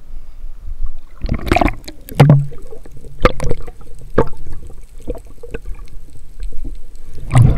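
Water splashing and sloshing in irregular surges, with sharp knocks scattered through.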